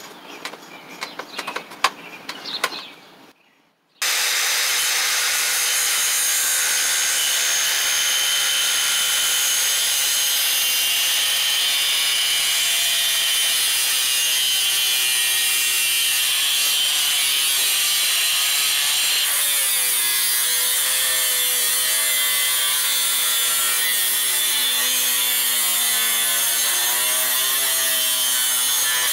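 Angle grinder with a cut-off wheel cutting through a bundle of metal shoe-rack tubes: a loud, steady grinding that starts suddenly about four seconds in, its whine wavering in pitch as the wheel works through the cut. Before it starts, a few clicks and knocks as the tubes are handled.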